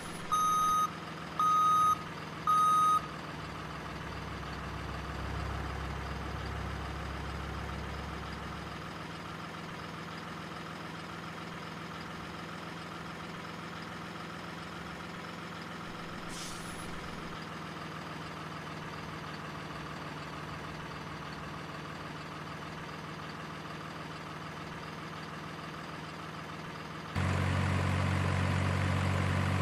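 Reversing beeps, about three evenly spaced beeps in the first three seconds, then a steady engine hum. Near the end a louder engine sound cuts in suddenly.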